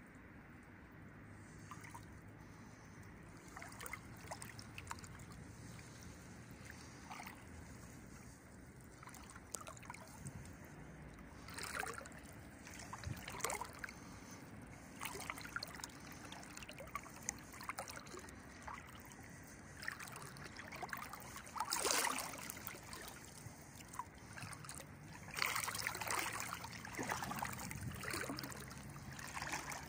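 Legs wading through shallow river water, the water swishing and splashing around them with each stride, with a few louder splashes through the middle and a longer splashy stretch near the end.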